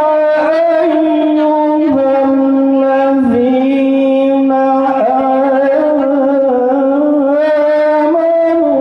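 A man's voice reciting the Qur'an in the melodic tilawah style, holding long sustained notes with wavering ornaments and moving to a new pitch every few seconds.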